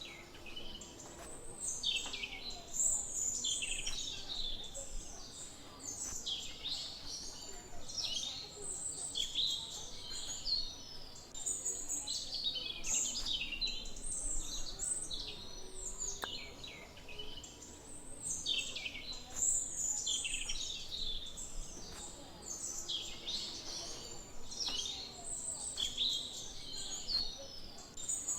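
Many small birds chirping together, a dense, unbroken twittering of overlapping high calls.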